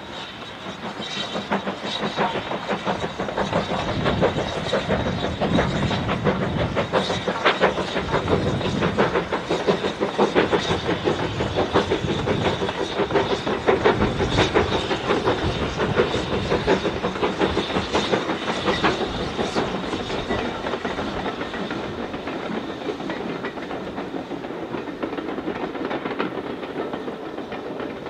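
Two steam locomotives double-heading a passenger train pass by with rapid, overlapping exhaust beats, loudest as the engines go by. Near the end the coaches roll past and the sound eases off.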